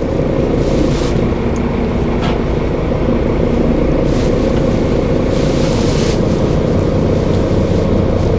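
HGV diesel engine running steadily at low speed, heard from inside the cab, with a few faint short hisses over it.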